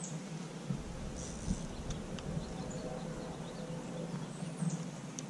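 Open-air background noise with scattered short, high bird chirps and a few faint clicks, with a low rumble for about two seconds near the start.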